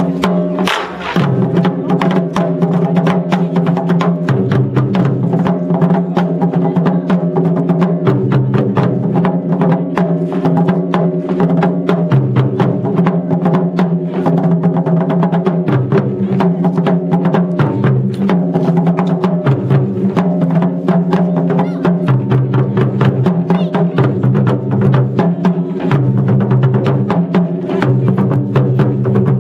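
Music with a steady clicking percussive beat over a repeating bass line that steps between notes every second or two.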